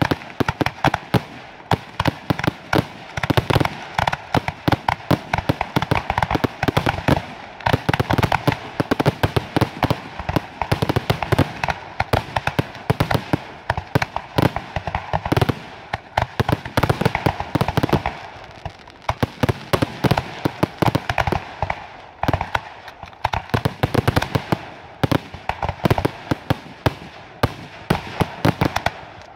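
Aerial firework shells bursting in a rapid, continuous barrage of the display's finale, with several sharp reports every second.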